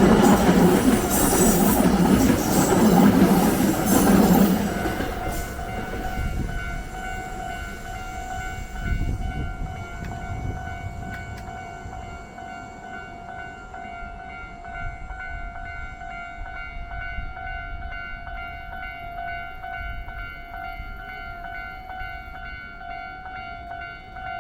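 A Hankyu train passes over the level crossing, loud for the first four seconds or so with a rumble and clicking of the wheels, then fading away. The crossing's warning bell keeps ringing on one steady pitch after the train has gone.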